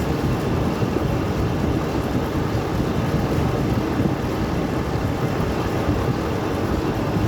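Metal-turning lathe running: a steady machine rumble from the motor and gearbox, with no change in level.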